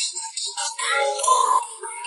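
Background pop music, thin and bass-less, with a sung or synthesised vocal line.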